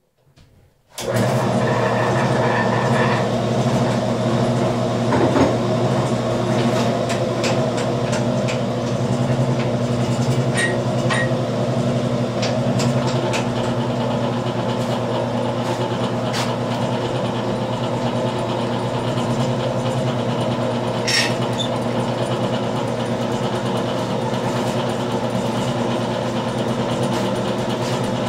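Wood lathe switched on about a second in, its electric motor coming up at once and then running with a steady hum as it spins an unturned mulberry blank. A few short knocks and ticks are heard along the way.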